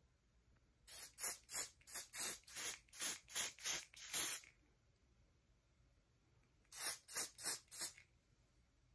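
An aerosol spray can let off in short, quick bursts of hiss: about ten in a row, a pause, then four more near the end. It is being sprayed onto a wig's lace at the hairline to help hold it down.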